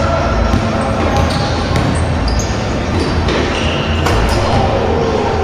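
Basketball game sound in a gymnasium: a basketball bouncing on the hardwood court now and then, with scattered sharp knocks over steady, echoing hall noise.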